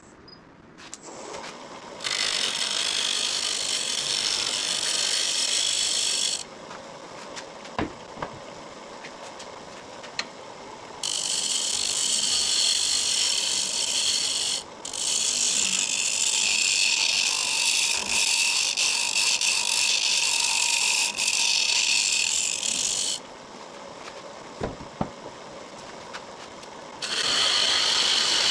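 A woodturning tool cutting into the end of a small spinning wooden blank on a lathe, hollowing it out: a hissing scrape in four long passes, the longest about eight seconds, with quieter gaps between.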